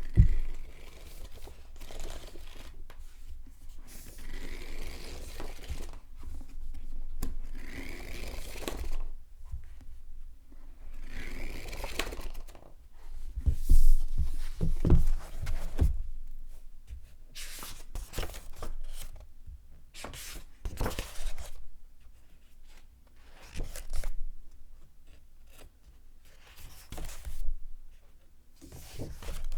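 Paper pages being turned by hand, a series of separate rustling swishes with a few heavier thumps midway.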